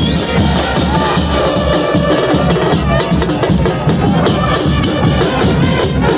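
Football supporters' drums beating a fast, steady rhythm, with a crowd of fans singing along in the stands.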